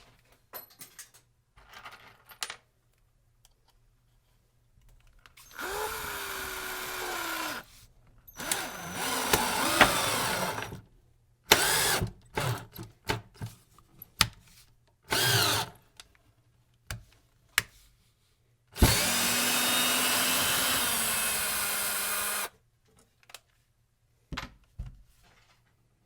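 Cordless drill driving screws into wood: several runs of the motor a couple of seconds long, a string of short trigger pulses, then a longer steady run of about four seconds near the end, with small handling clicks and knocks between them.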